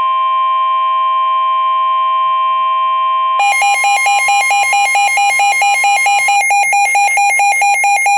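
Weather radio alert: the steady, loud warning alarm tone of about 1050 Hz. About three and a half seconds in, a lower alarm joins it, beeping rapidly several times a second, and it continues after the steady tone stops.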